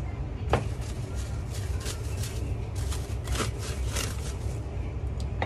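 A knife knocks once on a plastic cutting board about half a second in, then plastic cling wrap crinkles in short bursts as vegetables are pulled from it, over a steady low hum.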